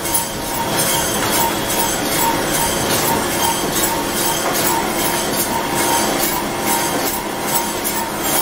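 Poultry processing line machinery running: an overhead shackle conveyor and processing machines give a steady metallic din with a hum and sharp clicks repeating several times a second.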